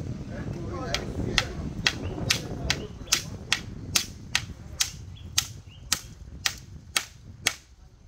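Steel claw hammer striking a nail into the wooden frame of a chicken-wire fish pot. About fifteen sharp, evenly paced blows, roughly two a second, start about a second in and stop just before the end.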